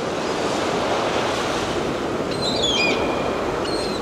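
Steady rush of sea surf, with a few short, high chirping bird calls from about halfway through.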